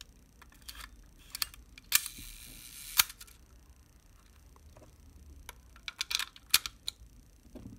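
Leica IIIG cloth focal-plane shutter fired at a slow speed: a sharp click as it opens, about a second of whirring from the slow-speed escapement, and a sharp click as it closes. Small mechanical clicks before and after come from working the camera's controls.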